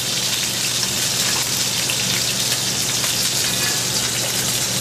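Sea scallops searing in oil in a very hot frying pan: a steady sizzling hiss with small scattered crackles.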